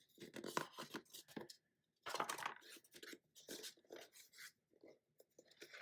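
Cardboard and paper packaging being handled, with irregular bursts of rustling and crinkling.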